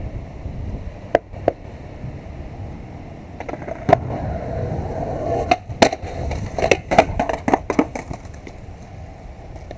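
Skateboard wheels rolling on concrete, with sharp clacks of the board hitting the ground: single clacks early on, then a quick clatter of several hits between about six and eight seconds in as the board comes loose from the rider and bounces away.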